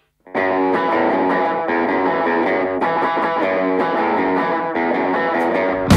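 Solo electric guitar from a red hollow-body with a Bigsby vibrato, picking a repeating riff. It starts suddenly a moment in, after a brief silence.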